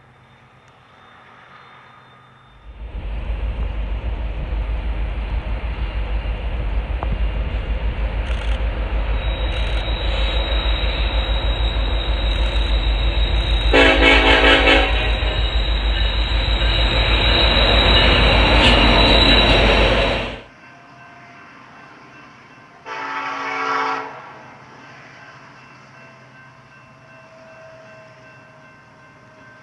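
Diesel freight locomotives running close by, a loud engine rumble with a fast low throb, and a horn blast of about a second near the middle. The loud rumble cuts off suddenly, leaving a quieter train rumble and a second, fainter horn blast.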